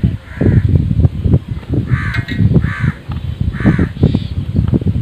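A bird calls again and again in short calls, about five of them, over loud, irregular low rumbling.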